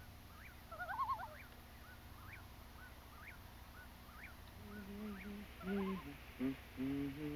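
Birds calling over still water: a quick series of short, high chirps, with one warbling call about a second in. From about halfway a slow, low melody of held notes comes in.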